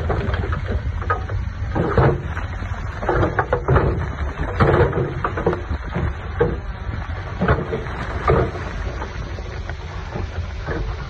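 Heavy diesel construction machinery running with a steady low engine drone, over irregular clattering and rumbling of stone and dirt being pushed or dumped.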